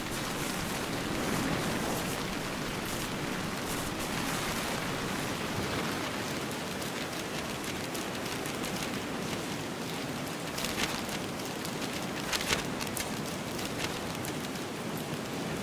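Steady rain shower falling as an even hiss, with a few sharper clicks standing out in the second half.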